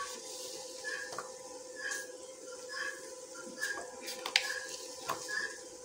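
A spoon scooping salt from a plastic tub: a few light clicks and scrapes over a steady hum, with short faint chirps recurring throughout.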